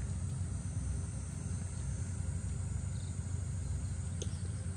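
Outdoor background of insects chirring faintly over a steady low rumble, with one short tap about four seconds in.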